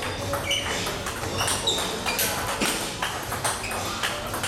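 Table tennis balls clicking off paddles and pinging on the tables during rallies, a quick, irregular run of sharp clicks from more than one table at once.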